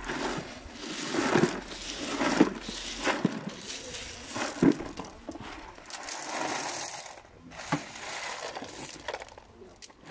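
Gravel being tipped out of a plastic bucket, the stones pouring and rattling onto a bed of gravel in several rushes, with a few sharper knocks among them.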